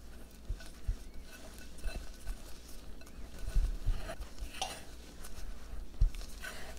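Stirring in a mixing bowl: a utensil scraping and clinking against the bowl in irregular strokes, with a few soft knocks.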